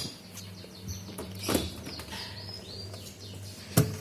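Birds chirping in short, gliding calls, with a few sharp knocks and clicks of handling; the loudest knock comes near the end. A steady low hum runs underneath.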